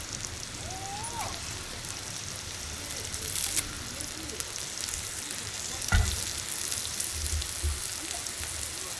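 Pork sizzling in a hot pan: a steady frying hiss with scattered small crackles, and a dull knock about six seconds in.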